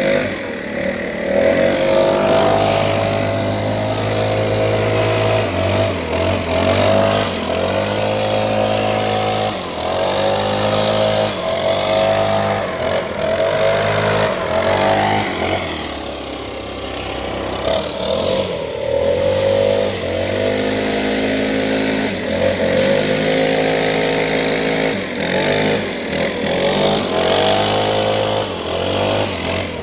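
Engine-driven leaf blower running, its engine speed rising and falling again and again as the throttle is worked.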